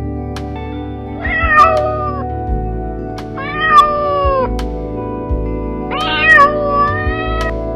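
A cat meowing three times, each meow drawn out for about a second and falling in pitch, over soft background music with sustained tones.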